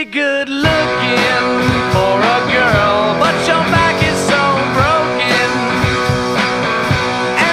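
Rock song with electric guitar, drums and singing, playing loudly and continuously.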